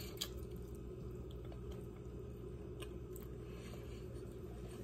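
Quiet kitchen room tone with a steady low hum, and a few faint clicks and soft sounds of fingers picking rice and chicken off a plate.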